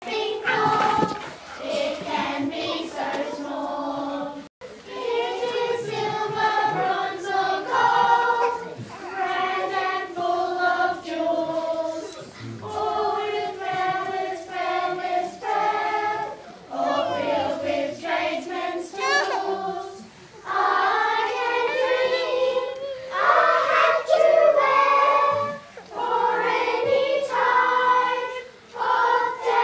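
A children's chorus singing a song together in phrases of held notes, with short breaks between phrases.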